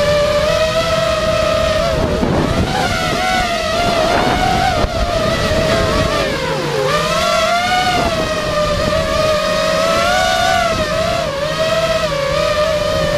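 FPV racing quadcopter's brushless motors whining, heard from the drone's onboard camera, the pitch rising and falling with the throttle and dipping sharply about two and seven seconds in.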